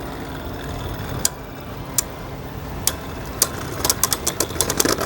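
Two Beyblade spinning tops whirring against each other in a plastic stadium, with sharp clicks as they strike, the hits coming in a rapid clatter near the end.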